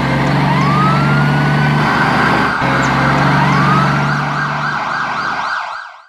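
A siren wailing, rising in pitch twice over a low steady drone and hiss. The whole sound cuts off abruptly near the end.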